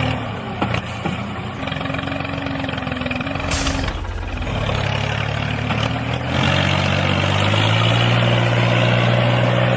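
A tractor engine running steadily at idle. About three and a half seconds in there is a short burst of hiss like an air-brake release, the engine dips briefly, then it runs again, louder from about seven and a half seconds in.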